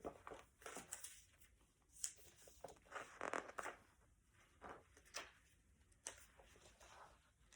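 Faint paper rustling and soft handling clicks from a picture book, in scattered short crackles over several seconds, as a page is turned.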